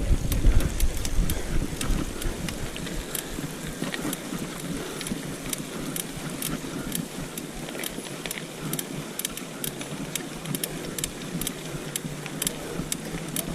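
Riding noise from a mountain bike: wind rumble on the microphone that dies away after about two seconds, over steady tyre and road noise with scattered sharp clicks and rattles.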